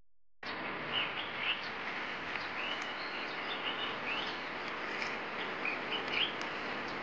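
Small birds chirping in short, repeated calls over a steady outdoor hiss, starting about half a second in.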